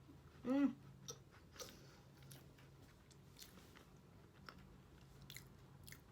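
Faint crunching and chewing of a crisp cream-filled sandwich biscuit, in small scattered crunches, with a short hummed "mm" about half a second in.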